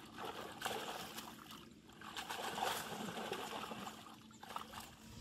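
Pond water splashing and trickling as a cast net with fish in it is gathered up and lifted from the water, the trapped fish thrashing in the mesh. The splashing comes in three spells with short lulls between.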